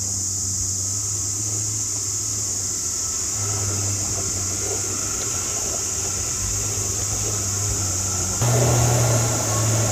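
An off-road 4x4's engine running, a steady low drone over a constant hiss, growing louder about eight and a half seconds in.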